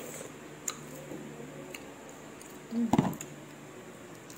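Light clicks of a balot's eggshell being picked and peeled off with the fingers, with one short louder low sound about three seconds in.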